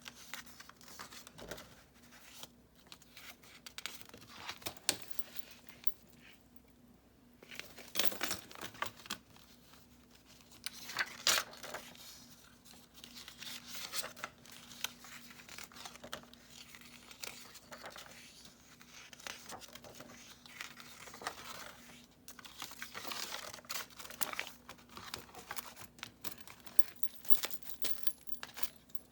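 Pages of a handmade junk journal of mixed papers, book pages and coffee-dyed paper being turned and handled: irregular crisp paper rustles and crinkles, with sharper flicks of a page about 8 and 11 seconds in. A faint steady hum sits underneath.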